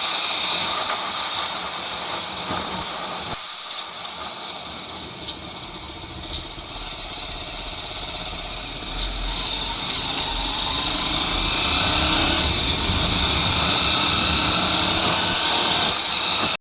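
Motorcycle engine running, growing louder over the second half.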